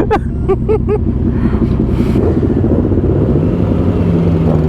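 Motorcycle engine running with a steady low rumble; about three seconds in its note rises and then holds steady.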